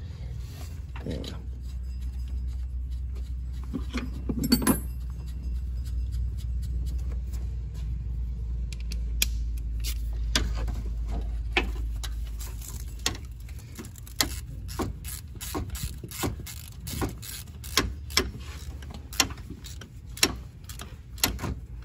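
Hand ratchet clicking in short strokes, about one or two clicks a second from roughly halfway in, as the compressor's mounting bolts are snugged down. A low steady hum underneath fades out about midway.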